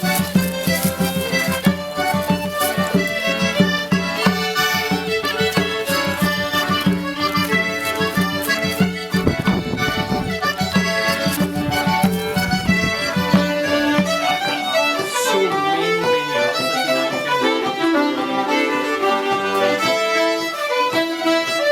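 Traditional folk dance tune played on accordion and fiddle, with a low held drone that drops out about two-thirds of the way through while the melody carries on.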